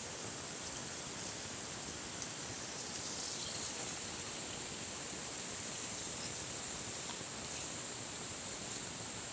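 Steady rushing of falling water, with a constant high-pitched insect drone over it.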